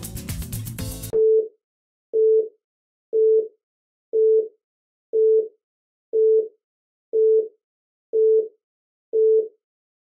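Intro music cuts off about a second in, followed by countdown beeps: one short, steady mid-pitched tone each second, nine times.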